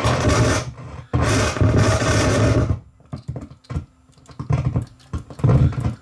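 Yamaha CR-66 Mark II stereo receiver giving loud bursts of static with a low hum, then rapid crackling and popping, as its volume control is worked. This is the scratchy noise of a bad, dirty volume potentiometer.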